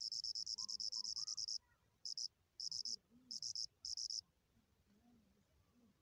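An insect, cricket-like, trilling in rapid, even pulses: one long trill, then four short bursts, falling silent about four seconds in.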